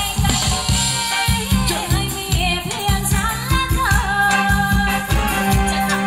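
Live band playing a Thai ramwong dance song: a singer's melody over electric guitar, bass and a steady dance beat.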